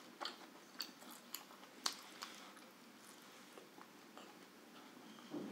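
Close mouth sounds of a person chewing food, with short wet smacking clicks, several in the first two seconds and fainter after.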